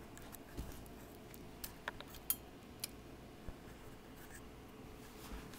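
Scattered light clicks and taps from handling, about seven in all and most of them in the first three and a half seconds, over a faint steady hum.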